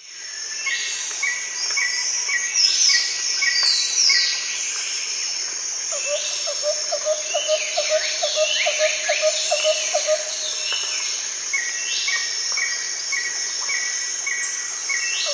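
Several birds singing and chirping: falling whistled notes, rows of short evenly spaced chirps, and a rapid low trill about six to ten seconds in.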